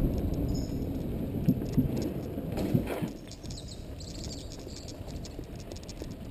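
Mountain bike rolling over a dirt trail, heard from an on-board camera: tyre noise and small rattles and knocks over a rumble of wind, quieter from about halfway. Faint bird chirps sound in the background.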